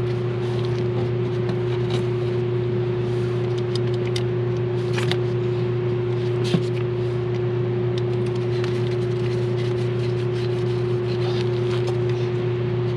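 A steady machine hum with scattered sharp clicks of a hand tool on metal as the 13 mm terminal nuts are run down on a glow plug relay.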